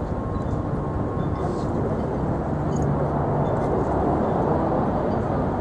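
Steady low outdoor rumble with indistinct voices of people talking.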